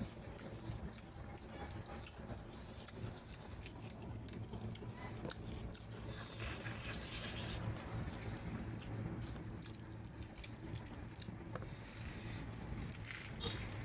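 A person chewing and eating, with small clicks and scrapes, and a brief hiss near the middle.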